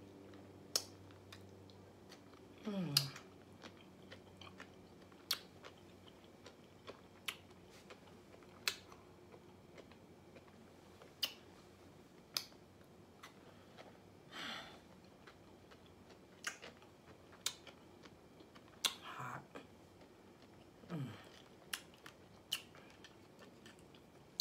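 Close-up chewing of crunchy raw vegetables such as celery and cucumber: sharp crunches every second or two between wet, smacking chewing, with a couple of short falling "mm" hums.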